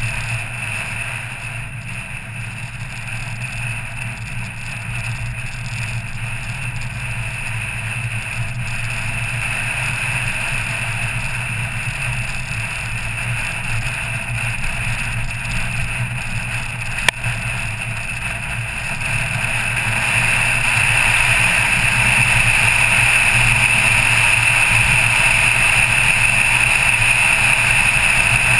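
Car driving up a winding mountain road: steady engine and road noise that grows louder about two-thirds of the way through. A single sharp click comes just past the middle.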